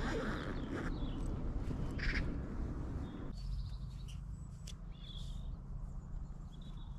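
Short, high bird chirps over a low outdoor wind rumble. A steady rushing noise fills the first three seconds and stops suddenly.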